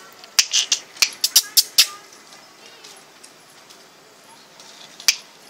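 A person snapping their fingers to call a dog: a quick run of about nine sharp snaps in the first two seconds, then a quiet stretch, and one more snap near the end.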